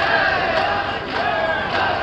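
Festival bearers chanting in unison: many voices shouting a rhythmic call together, a shout a little under twice a second.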